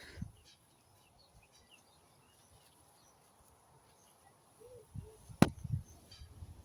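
Faint scattered bird chirps, then handling noise: low rustles and thuds, with one sharp click about five seconds in.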